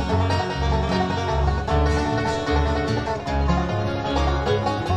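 Bluegrass band playing an instrumental intro: banjo rolls over strummed acoustic guitar, with upright bass plucking alternating low notes on each beat.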